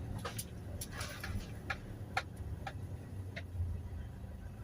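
Sharp clicks, about two a second, inside a Toyota Hiace Commuter's cabin over the low, steady hum of its running engine.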